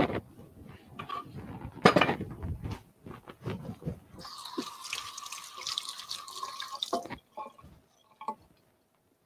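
A few knocks and clatters, then a kitchen tap runs for about three seconds, starting about four seconds in, with a steady ringing tone over the splash, as a mixing bowl is rinsed or filled at the sink.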